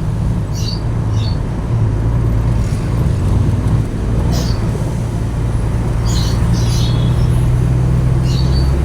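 Truck engine running steadily under the cab, a low even hum, with short high chirps a handful of times.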